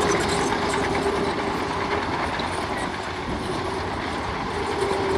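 Heavy tracked earthmoving machine running steadily: a diesel engine with a steady whine and a light metallic clatter of the crawler tracks.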